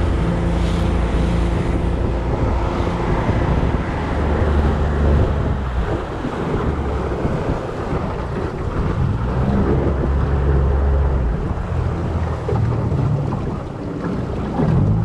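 Small boat's motor running steadily at low speed, with water rushing and splashing along the aluminium hull and wind buffeting the microphone.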